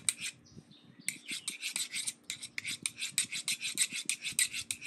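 A knife blade being stroked rapidly back and forth along a sharpening rod, a quick run of metallic scrapes at about six strokes a second after a short pause about a second in.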